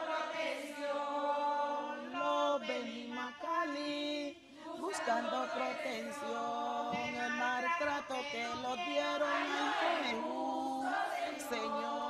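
A group of women and girls singing a lament together in chorus, with long held notes; the lines run "We came to Cali looking for protection" and "is not fair, oh Lord!".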